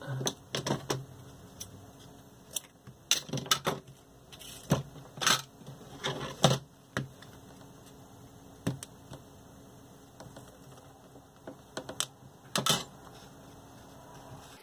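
Irregular clicks, taps and rustles of paper strips and card discs being handled and pinned on a cardboard board, with a few louder clicks spread through and quieter stretches between.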